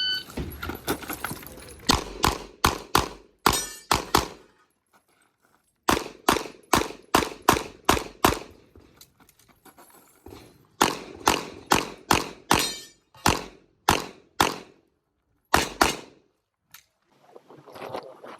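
A shot timer's start beep, then a handgun fired in several quick strings of shots with short pauses between them, during a timed USPSA stage run.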